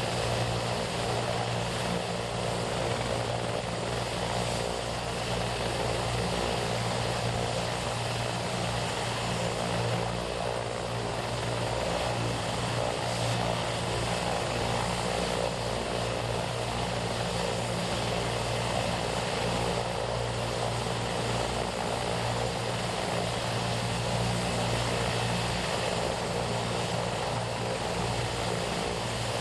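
MedFlight medical helicopter running steadily, an unbroken engine and rotor noise with a low hum.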